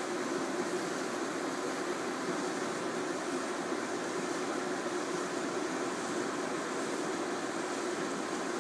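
Steady machine hum with a whooshing hiss over it, even and unchanging, like a ventilation fan running.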